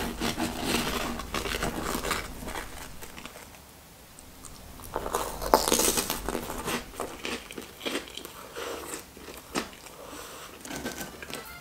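Close-miked eating sounds: crackling as a BeBe biscuit stick is scooped through the crisp toasted-marshmallow crust of a Nutella s'more dip, then a loud crunchy bite of the biscuit about five seconds in, followed by chewing.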